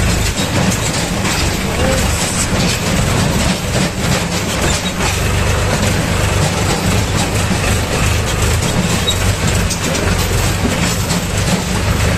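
Tractor's diesel engine running steadily, with a constant clatter and knocking of the machine jolting over the stones of a rocky stream bed.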